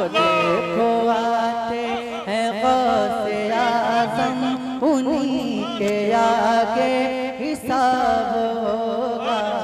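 A man singing a line of a naat (an Urdu devotional poem), drawing the melody out with ornamented turns over steady held tones.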